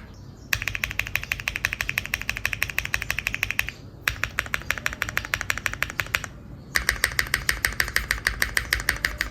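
Neo65 custom mechanical keyboard being typed on very fast, a rapid clatter of keystrokes in three runs with short pauses between them, about half a second in, around four seconds and around six seconds.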